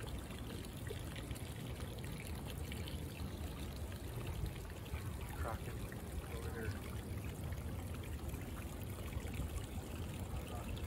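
Running water trickling steadily in a small canal.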